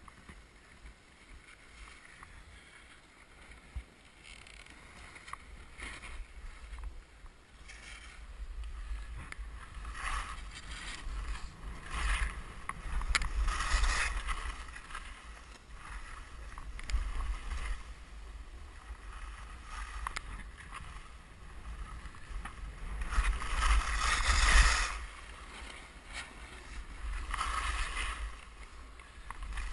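Skis carving and scraping over packed snow, a hiss that swells and fades with each turn and is loudest twice, a third of the way in and again past the middle. Wind buffets the microphone throughout.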